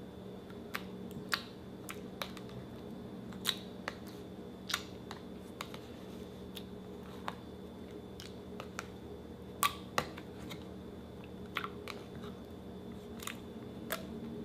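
Slime being worked by hand, giving irregular small wet clicks and squishes, some sharper than others, over a steady low hum.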